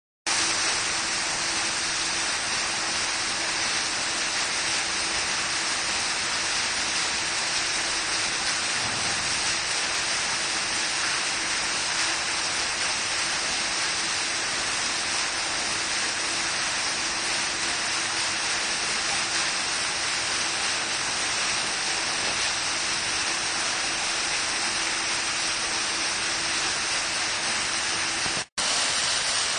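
Foam-jet fountains running: a steady hiss and splash of water columns falling into the pool, with a faint steady hum underneath. The sound cuts out for an instant near the end.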